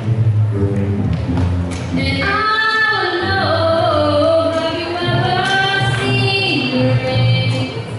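A girl singing at a microphone while plucking an upright double bass, steady low bass notes under her voice, with one long drawn-out sung phrase through the middle.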